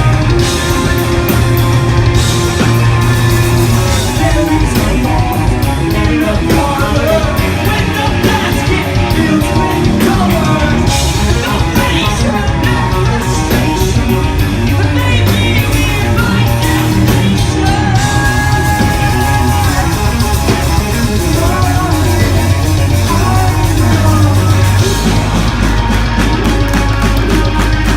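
Live rock band playing loud and continuous: distorted electric guitars, bass and fast drums, with a vocalist singing and yelling over them, as heard in a club through a phone-type recording.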